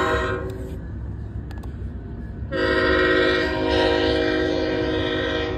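BNSF diesel locomotive's air horn, a chord of several notes, sounding for a grade crossing: one blast cuts off just after the start, then a second long, loud blast comes in about two and a half seconds in. The low rumble of the passing freight train runs underneath.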